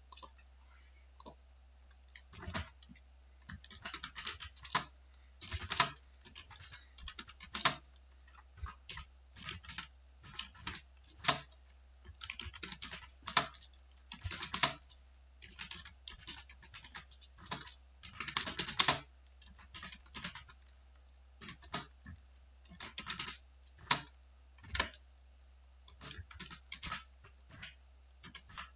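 Typing on a computer keyboard: irregular runs of key clicks, some louder than others, broken by short pauses.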